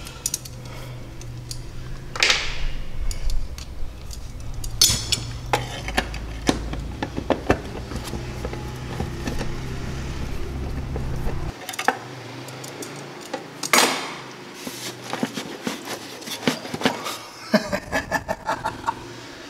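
Metal hand tools clicking and clinking as bolts are worked loose on the clutch cover of a Polaris Trail Boss 250 ATV, in scattered sharp taps. A low background hum cuts out about halfway through.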